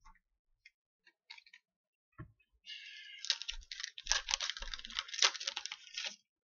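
Trading card pack and cards being handled: a few light clicks, then about three and a half seconds of dense crinkling and rustling from the wrapper and cards.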